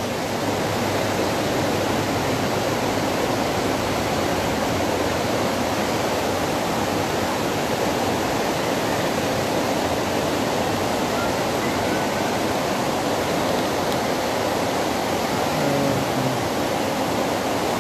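Waterfall rushing steadily: an unbroken, even hiss of falling water.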